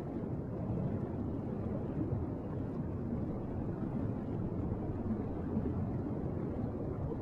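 Steady low rumbling water noise of an underwater recording on a reef, even throughout with no distinct clicks or tones.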